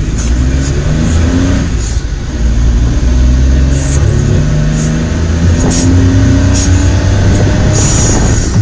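A small vehicle's engine running as it is driven, heard from inside the cab together with road noise and a few light rattles, its pitch shifting every second or so as it is driven.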